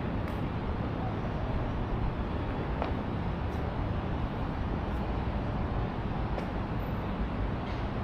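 Steady outdoor city ambience: a low rumble of distant traffic, with a few faint ticks.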